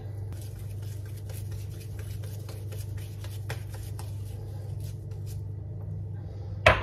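Wet hands shaping soft, sticky psyllium dough into a bun: faint, quick squishing and patting sounds over a steady low hum, with one sharp knock near the end.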